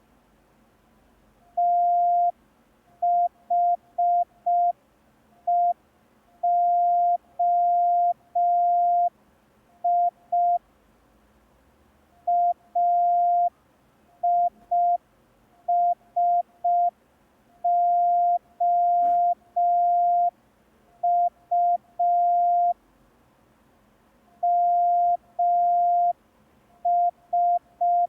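Morse code practice tone: a single steady beep keyed on and off in slow dots and dashes, with clear gaps between letters. It is a receiving exercise sending five-letter groups of random beginner letters.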